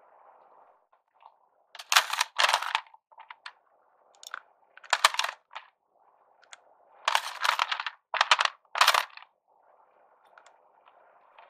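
Ice cubes and a metal spoon clinking as ice is scooped from a plastic ice tray and dropped into a glass jar, in several short clattering bursts a second or two apart.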